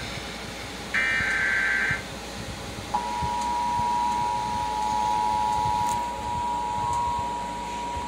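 Emergency Alert System tones played through a television: a one-second SAME header data burst, a harsh warbling tone about a second in, then after a short pause the steady two-tone EAS attention signal from about three seconds in. It is the alert heralding a broadcast tornado warning.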